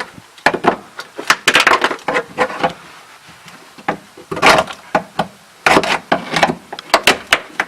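Dry-ice-frozen sound-deadening mat being knocked and broken off a Mazda RX-7's floor, with irregular sharp cracks and knocks as brittle chunks break loose, some in quick clusters.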